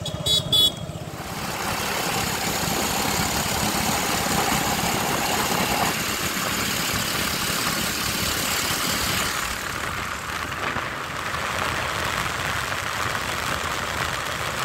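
Motorcycle on the move: steady rush of wind and road noise with the engine running underneath, opened by two short horn beeps in quick succession.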